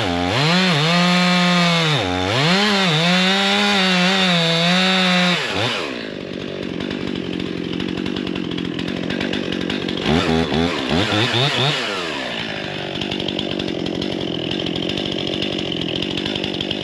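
Gas chainsaw cutting wood at full throttle, its engine pitch dipping and recovering as the chain bites, then dropping to idle about six seconds in. A few quick revs around ten seconds, then it idles on.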